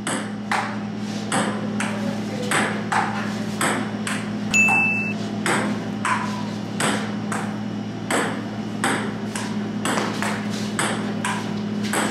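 Table tennis rally: a ping-pong ball clicking back and forth off paddles and the table, about two to three hits a second, over a steady low hum.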